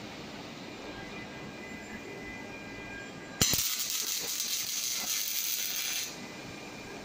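Robotic MIG welding arc from a Fanuc S-430iW's torch: after a few seconds of low hum, the arc strikes with a sharp crack about three and a half seconds in. It runs as a steady crackling hiss for about two and a half seconds, then cuts off at the end of the weld.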